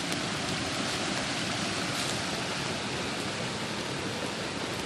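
River water running steadily, an even rushing noise.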